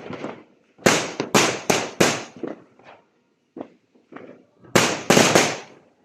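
New Year fireworks and firecrackers going off in irregular loud bangs, each trailing off in an echo: a rapid cluster of about four about a second in, scattered smaller pops in the middle, and another loud cluster of about three near the end.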